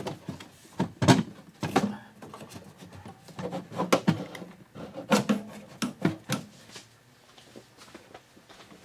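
Windshield wiper linkage assembly being handled, knocking and rattling in irregular clunks and clatters for about six seconds, then only a few faint taps.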